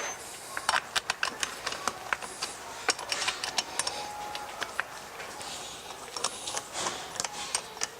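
Hands working on a chainsaw's bar and chain: irregular clicks, taps and scraping of small metal and plastic parts as the bar nuts are fitted loosely and the bar is settled in place.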